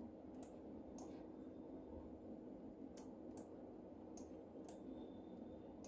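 Faint computer mouse clicks, six in all, spaced out over a few seconds, over a low steady hum.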